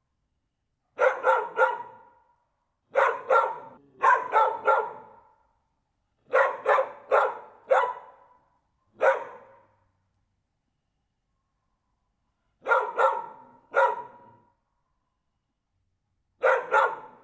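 Dog barking in quick runs of two or three sharp barks, with silent pauses of a second or more between the runs.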